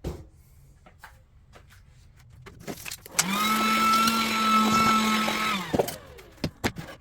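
Electric drill run briefly, free-spinning: it spins up, holds a steady whine for about two and a half seconds, then winds down. Light clicks and knocks of the tool being handled come before and after.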